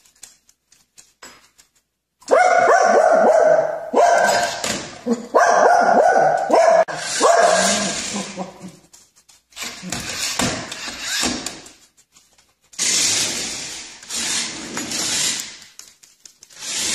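A dog barking in runs of rapid barks, starting about two seconds in, with short breaks between runs.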